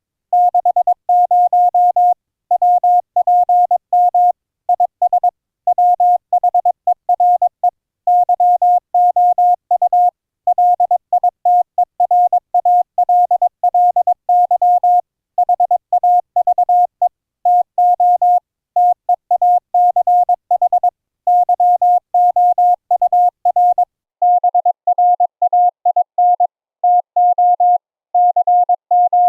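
Morse code (CW) audio: a single steady tone keyed on and off in quick dots and dashes, streamed over IP through GStreamer's ADPCM audio codec. A faint hiss rides along with the tone and falls away about five seconds before the end.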